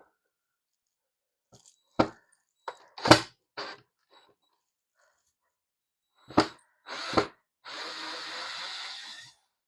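Sharp plastic clicks and knocks as slot car track sections are handled and pulled apart, five separate hits, then about a second and a half of steady scraping or rustling near the end.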